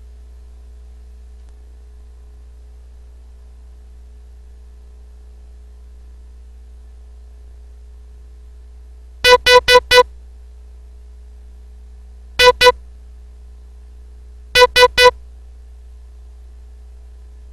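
Morse code sent as short electronic beeps of one steady pitch, all dits. Four quick dits come about nine seconds in, then two, then three, spelling the word "HIS" from the dot-group letters H, I and S.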